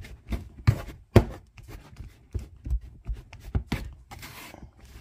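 Metal pastry blender chopping butter and shortening into flour in a bowl, its blades knocking against the bottom of the bowl in quick, uneven strokes, about two or three a second. The fat is being cut in to pea-sized crumbs for biscuit dough.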